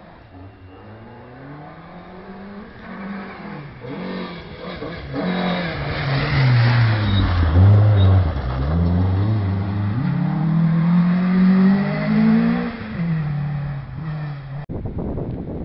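Rally car's engine on a gravel stage, revving hard with its pitch climbing and dropping at each gear change and lift-off. It grows loud toward the middle, climbs again as the car pulls away, and cuts off suddenly near the end.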